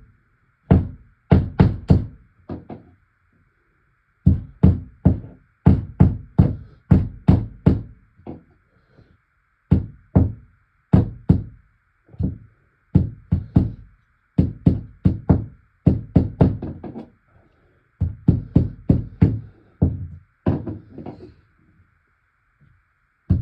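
Repeated hard hammer knocks driving a fastener into a wall, in runs of quick blows about two to three a second, broken by short pauses.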